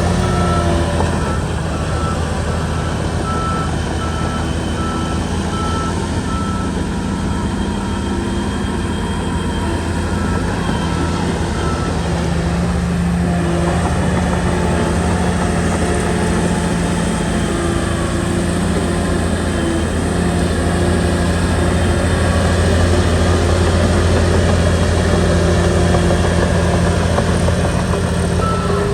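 Shantui bulldozer's diesel engine running steadily under load. A reverse alarm gives repeated even beeps at one pitch through about the first twelve seconds, stops, and starts again near the end.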